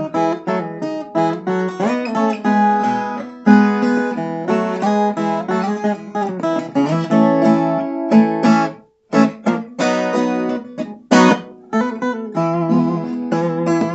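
Viola caipira, the Brazilian ten-string guitar with five paired steel-string courses, played in a run of quick plucked notes and strummed chords, stopping for a moment about nine seconds in.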